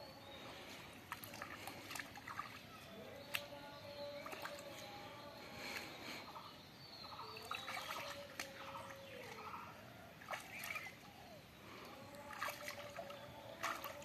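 Hands groping in shallow muddy water: scattered small splashes and sloshing as the mud is searched for fish by hand.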